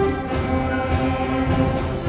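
A school concert band playing live, its woodwinds and brass holding sustained chords.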